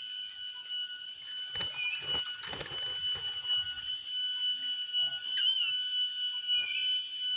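Short rising bird chirps repeating every couple of seconds over a steady, high, whistle-like tone. A patch of rustling and crackling comes about two to three seconds in.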